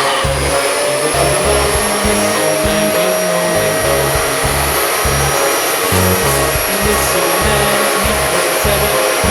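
Steady whine of a vacuum, as used in upholstery cleaning, under background music with a pulsing low bassline.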